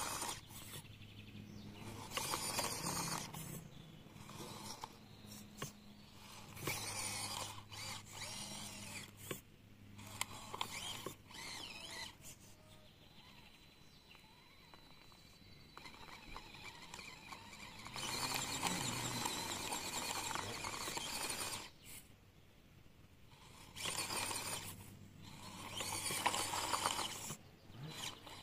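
A small electric motor running in repeated stop-start bursts of one to a few seconds each, with pauses between.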